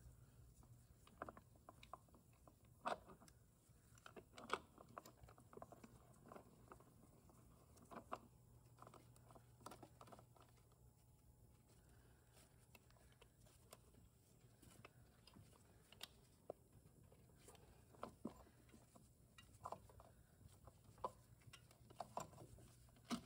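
Near silence with faint, scattered clicks and small metal-on-metal ticks from a pump puller being turned on the front pump of a Ford 4R70W automatic transmission, over a low steady hum. The clicks come more often near the end.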